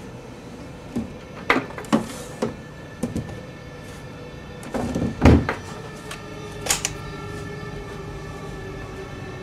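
Plastic Nerf blasters clacking and knocking against a drawer as they are handled and lifted out, a dozen or so short knocks with a heavier thud about five seconds in.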